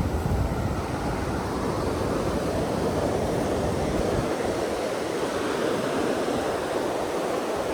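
Ocean surf washing steadily onto a sandy beach, a continuous rushing noise; a low rumble under it dies away about four seconds in.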